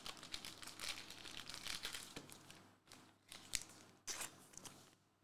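Faint rustling of Hoops basketball trading cards being handled and shuffled, with a few sharper clicks of cards being tapped or set down a little past halfway.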